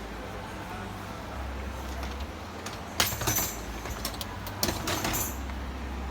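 Clicks and a short rattle of a dishwasher's parts being handled, over a low steady hum. The clicks come in a cluster from about halfway through.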